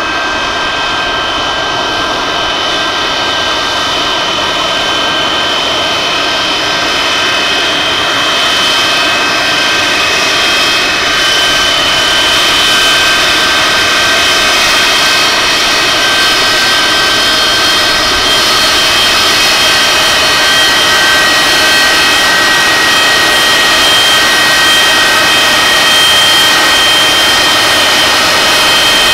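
Boeing 737-200's Pratt & Whitney JT8D turbofan engines at idle as the jet taxis: a steady high whine of several tones over a rushing noise, growing slowly louder as the aircraft comes closer.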